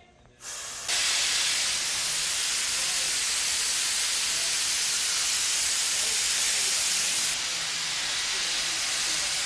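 Steady, loud rushing of air, like a wind machine blowing on a stunt rig. It starts suddenly just after the opening and loses a little of its top end about seven seconds in.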